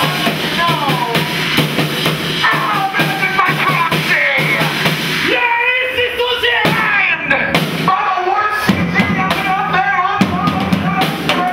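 Music with a drum kit beat and a wavering melody line.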